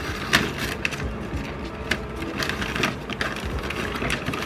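Plastic snack bag crinkling and crackling as it is pulled open by hand, with the sharpest crackle near the start.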